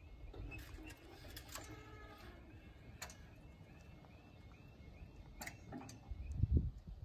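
A level crossing's audible warning alarm warbles faintly and evenly while the full barriers lower, with a few sharp clicks along the way. The alarm stops about six seconds in, as the barriers finish coming down, and a low rumble follows near the end.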